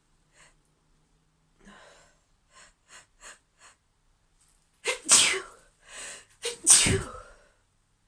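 A woman sniffling a few times at a tickle in her nose, then sneezing twice, about a second and a half apart. Each sneeze comes with a sharp catching in-breath just before it.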